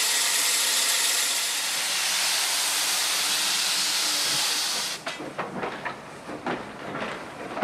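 Steam locomotive No. 12, a tank engine imported from Britain in 1874, venting steam in a loud, steady hiss. About five seconds in the hiss cuts off abruptly. It gives way to the quieter, irregular knocking and clatter of the train rolling along the track.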